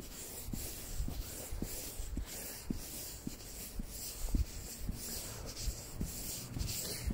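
Footsteps at a walking pace, about two a second, with the rustle of a padded jacket rubbing against a hand-held phone's microphone.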